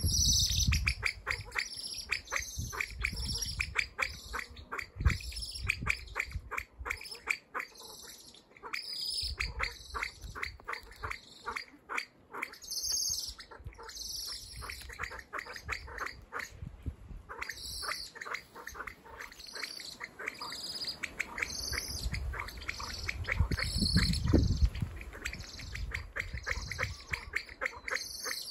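Male kalij pheasant calling: long runs of rapid, guttural clucking notes, with sharper higher notes mixed in.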